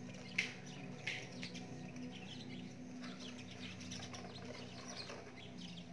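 Faint high chirping calls, many short ones with two louder calls in the first second or so, over a steady low hum.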